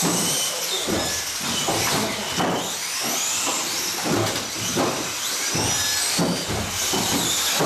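Several small 1/18-scale RC off-road cars racing, their electric motors whining and rising and falling in pitch as they speed up and slow down, over a steady hiss.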